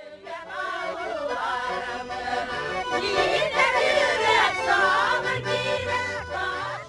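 Music: a song with singing over instrumental backing and a bass line.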